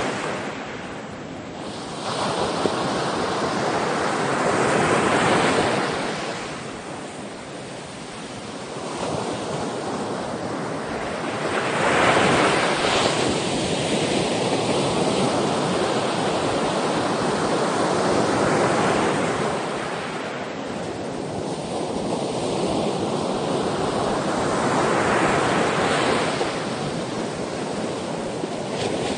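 Ocean waves breaking and washing ashore, surging in about every six to seven seconds, with a steady rush of surf between.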